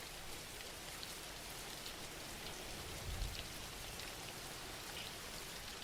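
Soft, steady rain ambience with scattered small drop patters, with a brief low thud about three seconds in.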